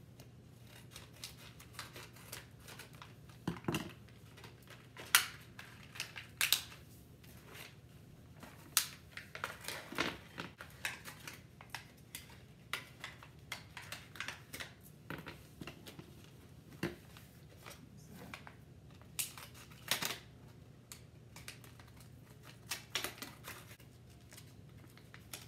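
Small plastic hardware packets of screws and an Allen key being handled and opened by hand: irregular crinkling and rustling with sharp clicks, a few of them louder snaps.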